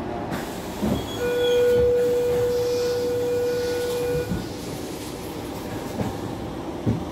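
Inside a Sydney Trains Tangara carriage: a steady train rumble. A single steady tone is held for about three seconds about a second in, and a few short knocks come near the start and the end.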